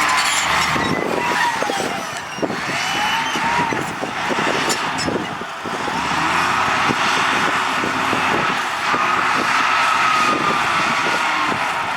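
Heavy construction machinery working under load: a diesel engine runs with a whine that rises and falls, along with repeated metallic clanks and knocks.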